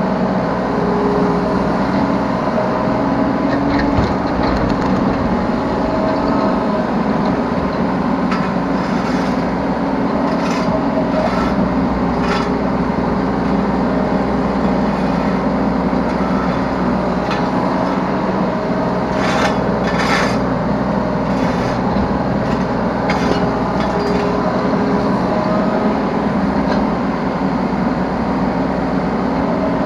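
Yanmar B3 Sigma 3-ton mini excavator running under load: its diesel engine hums steadily while the hydraulic whine shifts in pitch as the arm and bucket move. Scraping and clattering of the steel bucket in soil and debris come through repeatedly, thickest about twenty seconds in.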